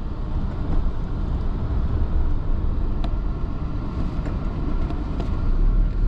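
Steady road and engine noise of a moving car heard from inside the cabin, a continuous low rumble with a few faint ticks.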